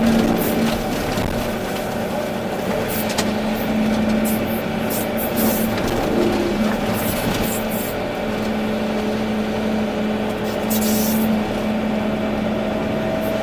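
Volvo EC380D excavator's diesel engine running steadily under working load, with a steady hum. Short hissy bursts come and go every second or two.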